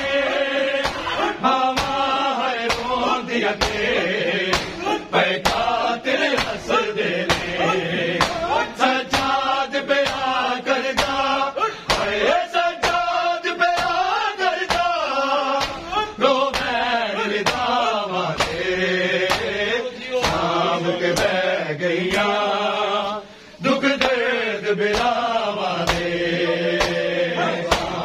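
Men chanting a noha, a Shia mourning lament, while the crowd beats their chests with open hands in unison. The slaps fall in a steady beat a little under two a second under the sung lines.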